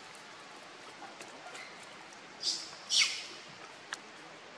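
Two short, shrill high-pitched animal calls about half a second apart, the second louder and falling in pitch, over a faint steady background hiss.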